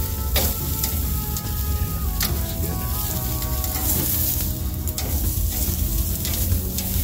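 Marinated sirloin steaks sizzling on a charcoal grill grate, with a few sharp crackles and clicks along the way. Music plays in the background.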